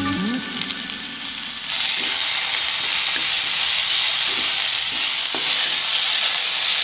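Sliced chayote and chilies sizzling in hot oil in a wok while a wooden spatula stirs them, with a few light knocks and scrapes of the spatula against the pan. The sizzle grows louder about two seconds in.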